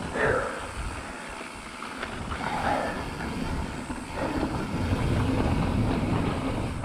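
Mountain bike descending a dry dirt and gravel trail: tyres rolling and crunching over the loose surface and the bike rattling, with wind rushing over the camera microphone. The noise eases about a second in and builds again from the middle as speed picks up.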